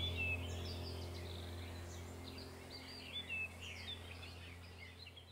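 Several small birds chirping in short, quick calls over a low steady hum, all fading out gradually.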